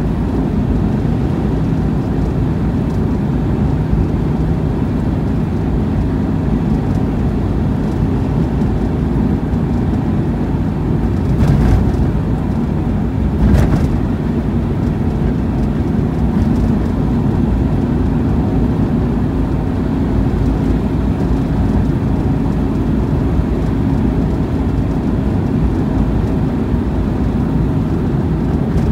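Steady engine hum and tyre-on-road noise inside a moving car's cabin, with two short louder noises about halfway through.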